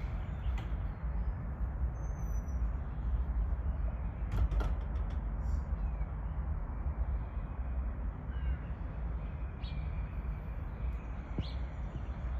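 Outdoor ambience: a steady low rumble with a few faint, brief bird chirps and calls. There are a couple of sharp clicks about four and a half seconds in.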